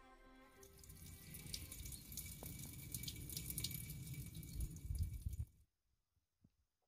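A thin stream of spring water pouring from a metal spout into a granite basin: steady splashing with a low rumble under it. It cuts off suddenly about five and a half seconds in.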